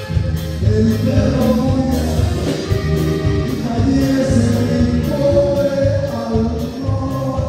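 Live norteño band music: accordion and saxophone carrying held melody notes over electric bass and a steady drum beat at about two beats a second.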